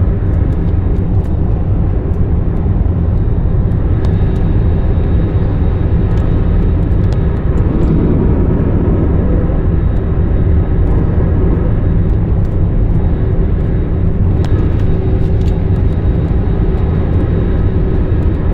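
Steady airliner cabin noise: a loud, even low rumble of jet engines and airflow heard from inside the passenger cabin, with a few faint clicks scattered through it.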